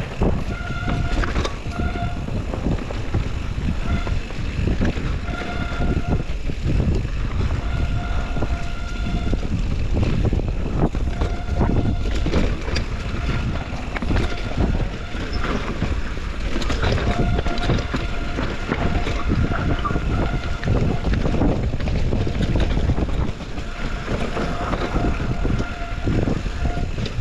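Rocky Mountain Slayer mountain bike running down a rough downhill trail: a steady rumble and rattle of tyres and suspension over dirt and rocks, with wind buffeting the microphone. A high whining tone comes and goes every few seconds.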